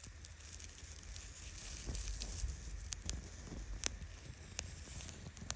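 Fish frying in a pan over a campfire: a steady sizzle with sharp pops and crackles scattered through it.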